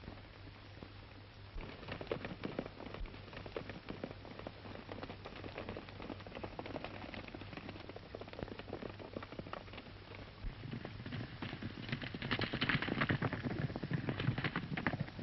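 Hoofbeats of horses galloping on dirt, a dense, irregular patter of hooves that grows louder about eleven seconds in. A steady low hum runs underneath.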